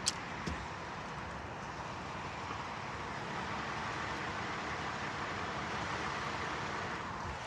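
Steady mechanical running noise of a bucket truck, with a sharp click right at the start and another just after; the noise grows slightly louder in the second half.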